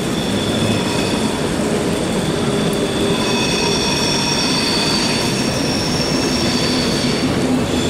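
Train wheels squealing on the rails in a station: several high, steady squealing tones over a continuous low rumble, loudest from about three seconds in until shortly before the end.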